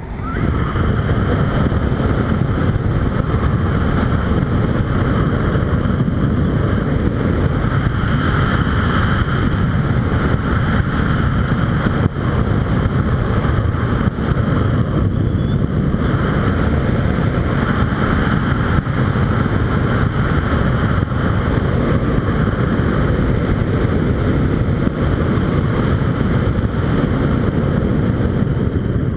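Steady wind rushing over the microphone of a body-worn camera on a speedflyer in fast flight, heaviest at the low end.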